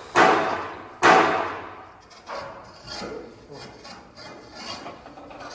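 A long steel bar rammed by hand against a boiler tube in a locomotive boiler, trying to drive the tube out. There are two loud clangs in the first second, each ringing on through the steel boiler shell, then several lighter knocks. The tube is stuck fast in the thick front tube plate, held by salts rather than rust.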